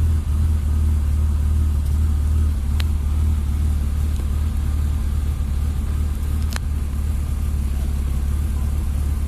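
BMW E36 325i's 2.5-litre straight-six idling steadily, with two brief clicks about three and six and a half seconds in.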